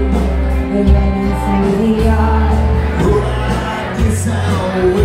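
A live band playing loud amplified rock music with a heavy bass line, drums and a singer, in a large hall.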